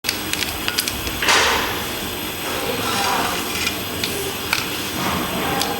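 Light clicks, knocks and rustling as onions are spread by hand over layered biryani rice in a cooking pot.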